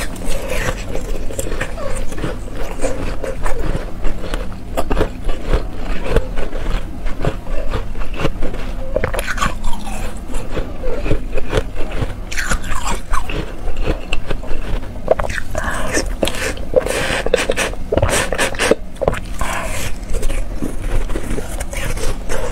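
Close-miked crunching of a thin sheet of ice being bitten and chewed: a dense run of sharp, brittle crackles and clicks that goes on without a break.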